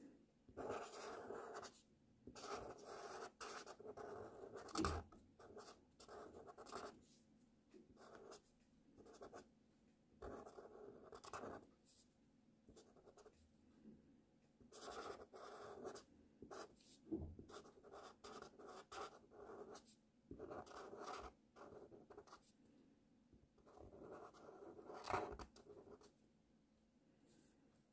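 Faint felt-tip marker nib scratching across paper in short strokes, writing cursive letters, with brief pauses between strokes. Three sharp ticks stand out, about five seconds in, midway and near the end.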